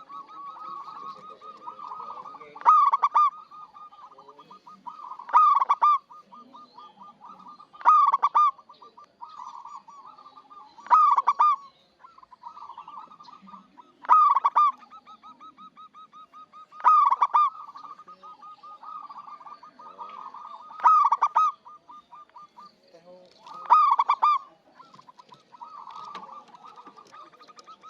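Zebra dove singing: loud cooing phrases repeated about every three seconds, with a softer, quick run of cooing notes between them.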